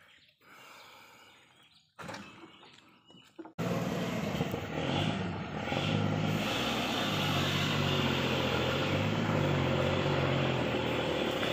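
Toyota Land Cruiser FJ40 hardtop's engine running hard under load as the truck, its bed full of oil palm fruit bunches, drives up a rutted muddy track. It comes in abruptly about three and a half seconds in, after quiet, and stays loud and steady with the engine note shifting.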